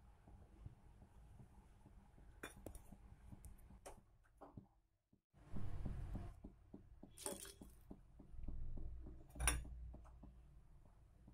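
Faint clinks and taps of stainless steel kitchenware, a steel bowl and a pot of water with lemon pieces, a few sharp ones scattered through, over a low steady hum.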